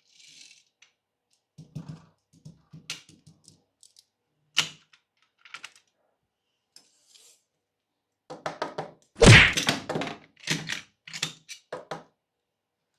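Plastic toy pieces being handled and set down: scattered light clicks and taps, then a denser run of knocks with one loud thunk about nine seconds in.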